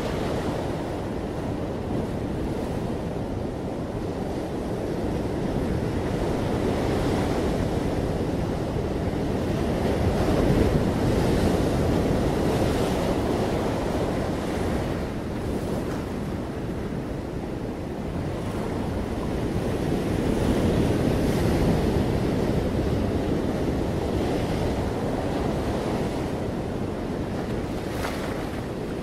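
Ocean surf breaking among rocks and washing up a sandy beach: a continuous rush that swells louder about ten seconds in and again around twenty seconds.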